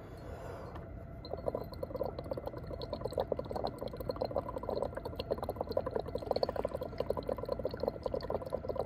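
Exhaled breath blown through a tube into a flask of bromothymol blue solution, bubbling steadily with rapid small pops. The bubbling starts about a second in.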